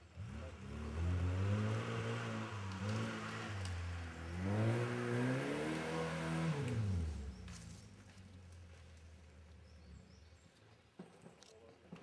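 Lada Niva's engine revving in two surges under load as it climbs off-road, its pitch rising and falling, then fading away about seven seconds in.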